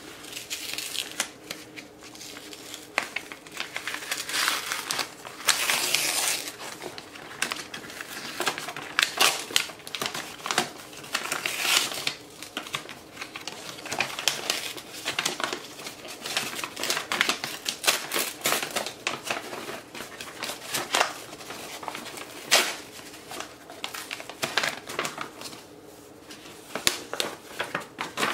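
Kraft masking paper and blue painter's tape being peeled off a book cover and crumpled: a continuous run of irregular crinkling and rustling, with sharper crackles now and then.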